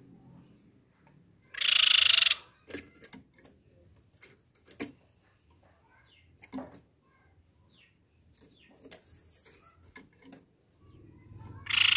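Crescent-chested babbler (tepus pipi perak) giving a loud, rapid trilling call twice, once about two seconds in and again near the end. Between the calls there are scattered light clicks and taps and a brief thin high whistle.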